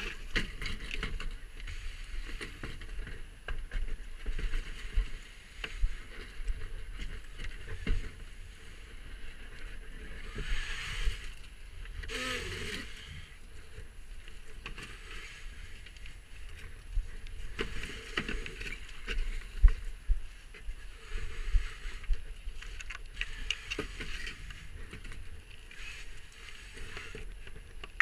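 Steady rush of whitewater from a rapid, with scattered knocks and low thumps from a plastic kayak being carried and set down over rocks.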